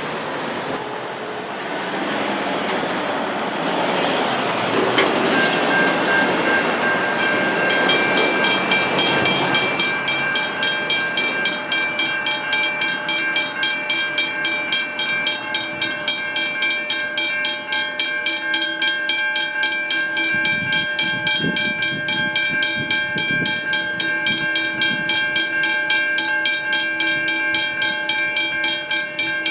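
A train passes with a broad rushing rumble for the first several seconds. Then the level crossing bell rings on in rapid, evenly repeated strikes, about two a second. Some low wheel thumps come in about two-thirds of the way through.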